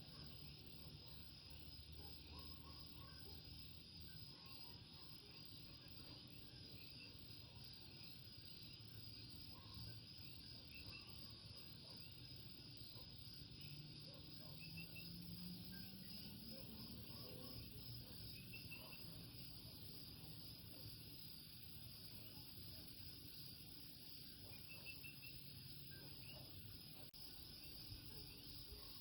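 Faint night chorus of common coquí frogs, scattered short chirping calls over a steady high trill of insects. A faint low sound rises in pitch around the middle.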